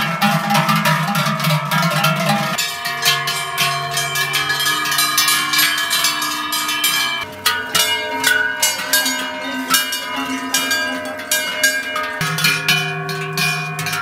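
Large Swiss cowbells clanging irregularly on walking cows, over background music with held chords.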